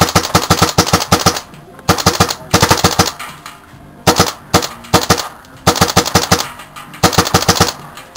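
Karnivor paintball marker firing in rapid strings of shots, about a dozen a second, each string under a second long with brief pauses between.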